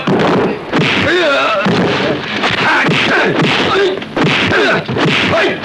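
Fight-scene soundtrack from a kung fu film: fighters' short shouts and cries over a quick run of punch and kick impact effects.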